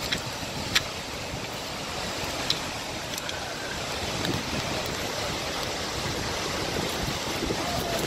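Steady rushing of a large waterfall, Skógafoss, heard from near its base. Wind buffets the microphone, and there are a few sharp clicks in the first few seconds.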